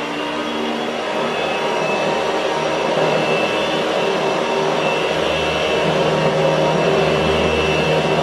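Philips AquaTrio cordless wet-and-dry vacuum running steadily, vacuuming and mopping in one pass as its rollers are pushed over a tiled floor, with a steady high whine over the motor noise.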